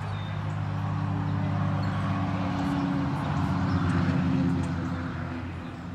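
A motor vehicle's engine running with a low, steady hum. It swells to its loudest about four seconds in and then fades.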